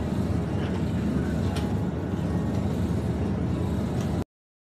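Steady low rumbling hum of supermarket refrigerated display cases and store ambience, with a few faint clicks. It cuts off suddenly near the end.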